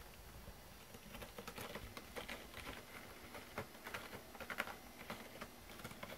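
Faint, irregular clicking and tapping of cats' paws and claws as they move about.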